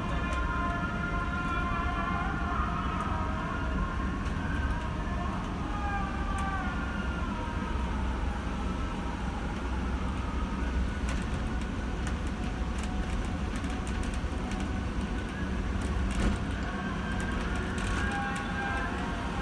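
Mercedes-Benz Travego coach's diesel engine running under way, a steady low drone heard from the driver's seat in the cab. Faint wavering higher tones ride over it for the first several seconds and again near the end.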